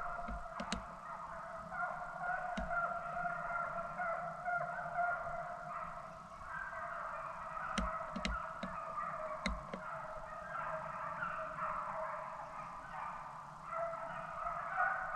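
A pack of deer-hunting hounds baying on a running chase, many voices overlapping without a break. A few sharp clicks of gun or camera handling come through about a second in and again near the middle.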